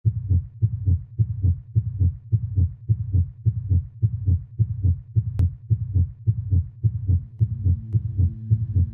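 Low, heartbeat-like double thumps repeating in a steady rhythm, a sound effect on a film soundtrack. A steady low drone joins under them near the end.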